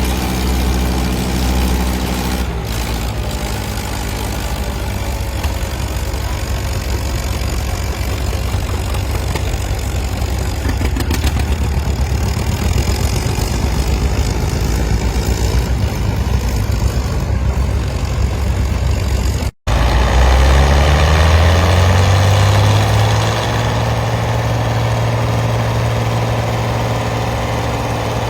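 Antique farm tractor engine running steadily. After a brief break about two-thirds of the way through, an engine speeds up over a few seconds and then holds a steady, higher pitch.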